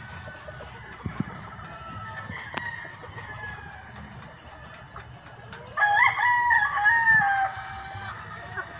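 A rooster crows once, a loud crow of about two seconds beginning about six seconds in, its pitch stepping up and holding before it falls away at the end. Fainter chicken calls come before it.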